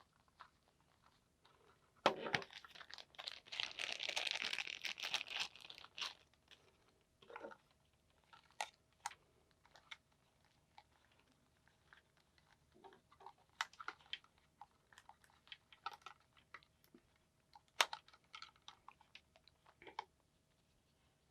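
Hands handling a Sony MDR-V6 headphone earcup and earpad: a dense burst of crinkling and crunching from about two to six seconds in, then scattered sharp clicks and soft rustles.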